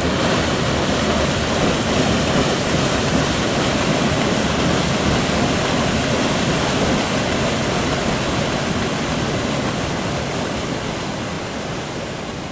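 Paddle wheels of the 1906 paddle steamer Blümlisalp churning the water, a loud, steady rushing that slowly fades over the last few seconds.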